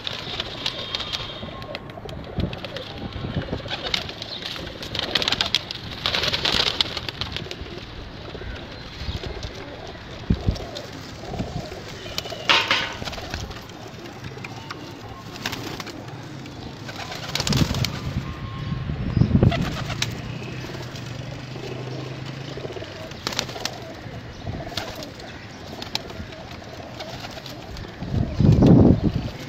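Domestic pigeons cooing in a loft, with many short knocks scattered among the calls. Near the end there is a louder low rumble about a second long.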